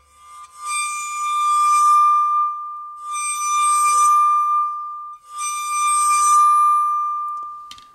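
Steel circular saw blade bowed at its rim with a viola bow three times, singing one steady high tone that rings on between strokes. Each stroke adds a scratchy shimmer of higher overtones. A clamp on the rim forces a node there, fixing which vibration mode the blade sings in.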